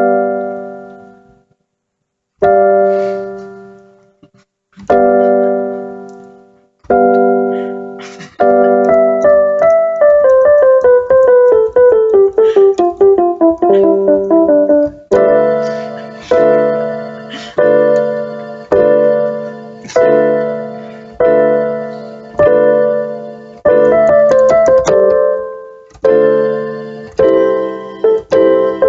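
Solo piano music. Widely spaced chords ring out and die away, then a fast run of notes descends, then chords are struck in a steady rhythm about once a second, coming quicker near the end.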